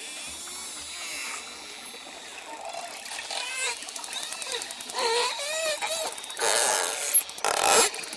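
Dolphins whistling and clicking: many short rising-and-falling whistles, often overlapping, with rapid buzzing click trains. The whistles start a few seconds in and grow louder about halfway through.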